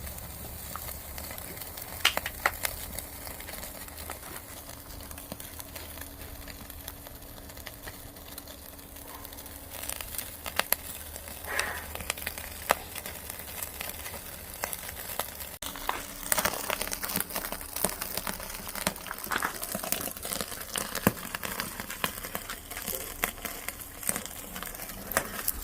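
Mackerel grilling over a wood fire: a steady sizzle with scattered sharp crackles and pops from the burning firewood.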